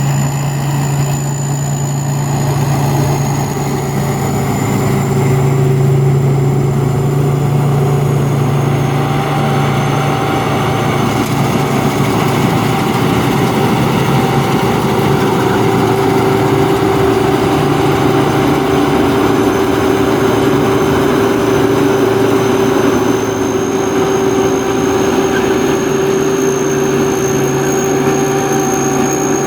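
Thai Seng combine harvester's turbocharged diesel engine running steadily under a constant drone, with a high turbo whistle over it. The whistle sags slightly in pitch about a third of the way in and climbs back near the end.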